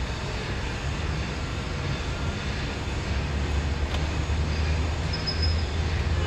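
An engine running steadily, a low rumble under an even mechanical hiss that grows slightly stronger about halfway through.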